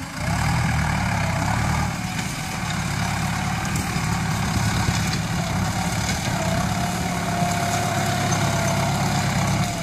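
Ford New Holland farm tractor's diesel engine running steadily under load as it pulls a row implement through the soil, with a faint whine that wavers slightly in pitch.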